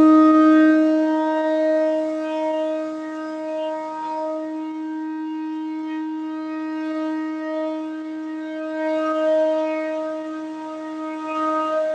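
Indian Railways locomotive horn sounding one long steady note at the flag-off of a departing train.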